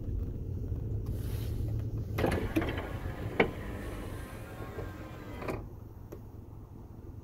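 Low steady rumble of a car driving slowly, heard from inside the cabin. About two seconds in, a rustling, clattering noise with sharp clicks lasts about three seconds.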